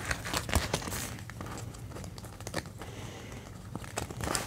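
Clear plastic zip pockets of a cash-envelope binder crinkling and rustling as banknotes are slid and handled inside them, with a few light clicks. The handling is busier near the start and end and quieter in the middle.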